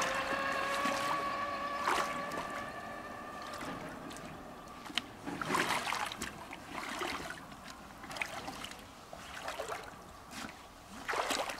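Water sloshing and splashing as a person in waders wades through shallow river water, in uneven bursts about a second apart. A steady pitched tone is heard over the first few seconds and then fades out.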